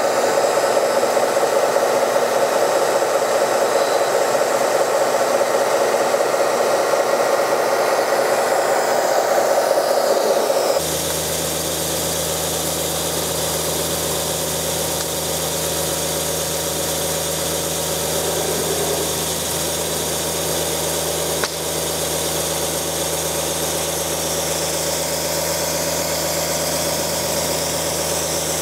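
Small electric water pump of a model fire engine running steadily while a jet of water sprays from its nozzle. About eleven seconds in the sound cuts to a lower, steadier hum with spray hiss over it.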